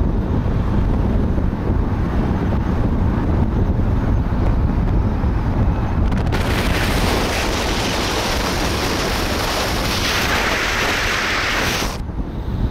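Car driving along a road: steady low rumble of engine and tyres with wind noise on the microphone. About six seconds in, a loud hiss of rushing air joins and cuts off suddenly near the end.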